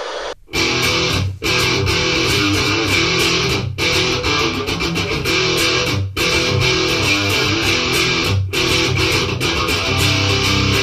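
Electric guitar with a hand-wound homemade pickup, played through overdrive: a distorted riff with short breaks about every two and a half seconds. A brief burst of static-like noise comes just before the playing starts.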